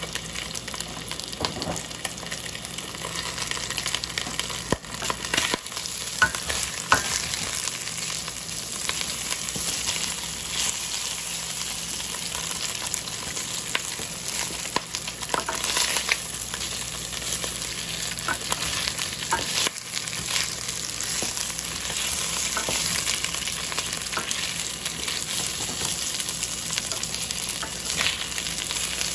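Food sizzling steadily as it fries in a hot pan, with scattered clicks and knocks of a utensil stirring it.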